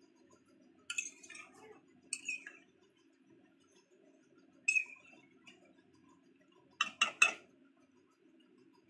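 Spatula scraping and tapping against a kadai while a thick chicken curry is stirred: a few separate clinks, then three quick louder taps about seven seconds in, over a faint steady low hum.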